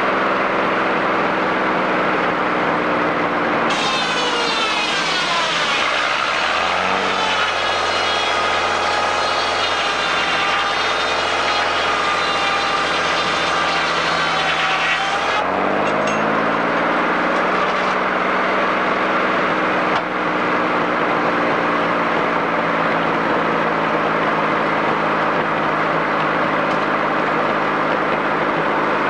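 Engine-driven sawmill running steadily. About four seconds in, the head saw bites into a log: its pitch drops as the mill loads down, and a high whine holds through the cut for about eleven seconds. The pitch then rises back as the cut ends and the saw runs free again.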